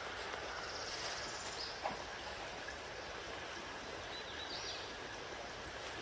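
Steady rushing of a nearby creek, with a couple of faint high bird calls and a soft tap about two seconds in.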